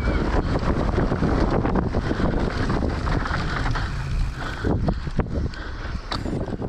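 Wind buffeting the camera microphone on a fast mountain-bike descent, with the rushing noise of the ride and three sharp knocks from the bike in the second half.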